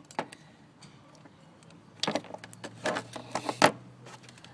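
Handling noise of tools and engine-bay parts being worked by hand. A sharp click comes just after the start, then a run of clicks and rattles from about two seconds in, the last click the loudest.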